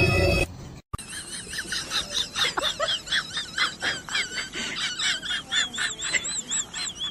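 An animal giving a quick string of short, high-pitched chirping calls, each rising and falling, about three or four a second, starting about a second in.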